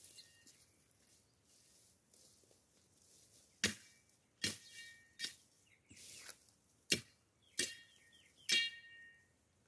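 Six sharp blows of a metal-bladed hand tool chopping into dry brush and soil while clearing ground, coming about a second apart from a few seconds in. Several blows carry a brief metallic ring.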